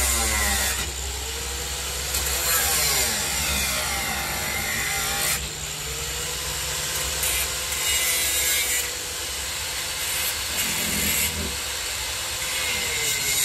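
Corded angle grinder with a cutoff wheel cutting through steel screws. The motor's whine dips and recovers again and again as the wheel bites and is eased off.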